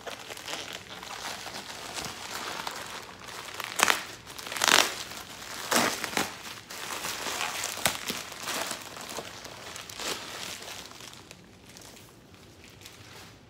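White plastic wrapping crinkling and rustling as it is worked off a graded comic slab, with several sharp, louder crackles and rips in the middle. The sound dies down near the end.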